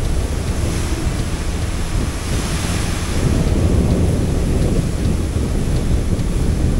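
Wind buffeting the microphone and water rushing past the hull of a moving ferry boat, a steady noisy rumble that grows a little louder about three seconds in.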